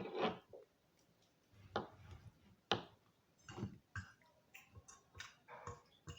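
Cutlery clinking and scraping on a plate while eating, a scattering of short, sharp clicks at irregular intervals.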